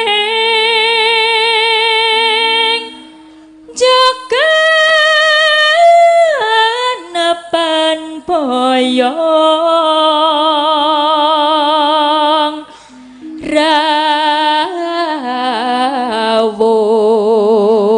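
A sinden, a Javanese female gamelan singer, singing a tembang through a microphone in long held notes with wide vibrato, broken by two short pauses about three and thirteen seconds in. A steady low note sounds beneath her voice.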